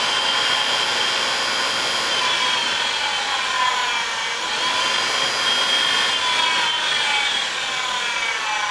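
48-volt electric motor of a converted 1967 Kawasaki A1-SS spinning with no load on its bare output shaft under throttle: a steady whine that dips about four seconds in, climbs again, then slows and falls in pitch near the end.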